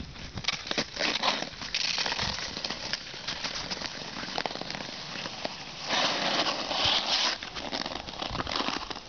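Hockey skates scraping and hissing across pond ice, with sharp clacks of a hockey stick hitting a ball on the ice; the scraping is loudest in two stretches about two and six seconds in.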